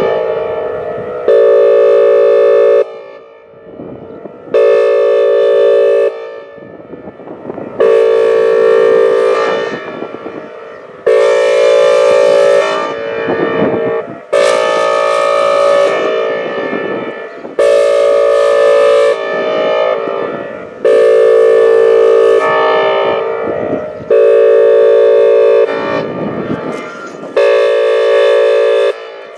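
Whelen Vortex R4 electronic outdoor warning siren sounding its Air Horn signal: loud, single-pitch horn blasts about a second and a half long, repeating about every three seconds, with a fading tail of echo after each. A second siren can be heard winding faintly in the gaps between blasts.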